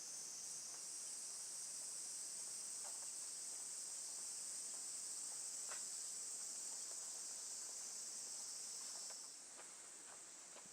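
Faint, steady high-pitched chorus of crickets chirping on a summer night, with a few faint ticks; the chorus drops away about nine seconds in.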